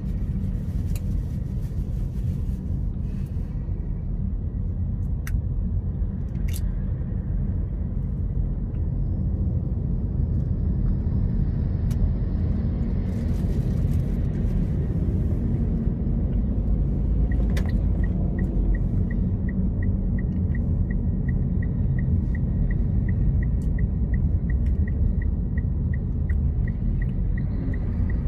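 Steady low rumble of a car's engine and tyres, heard inside the cabin while driving slowly in heavy traffic. A little over halfway through, a regular light ticking starts, about two ticks a second, and carries on to the end.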